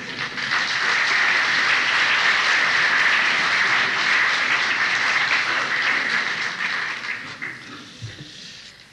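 Concert audience applauding, a dense steady clapping that starts at once and dies away over the last two seconds.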